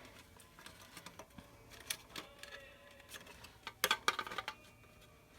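Faint clicks and light knocks of plastic interior trim parts being handled and pushed into place, with a cluster of sharper clicks about four seconds in.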